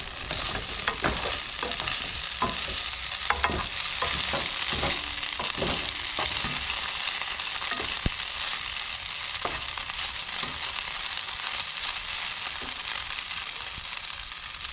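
Potatoes sizzling steadily as they fry in a pan. A utensil scrapes and taps against the pan through the first half, as the potatoes are stirred.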